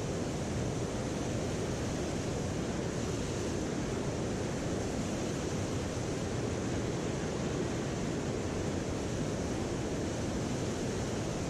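Steady rushing of a mountain stream's water running over rocks, an even noise that does not change.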